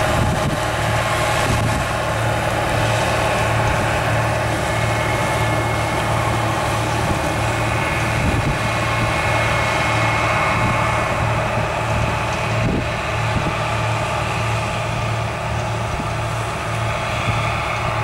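Harvest machinery's diesel engine running steadily, a constant low drone with mechanical noise over it and no pauses.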